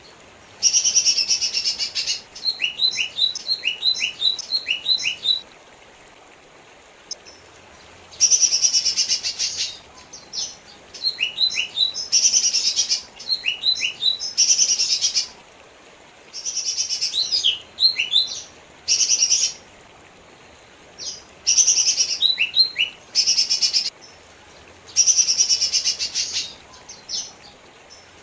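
Cucak ijo mini (lesser green leafbird) singing: dense, buzzy bursts about a second long alternate with quick runs of short, falling whistled notes, with brief pauses between phrases.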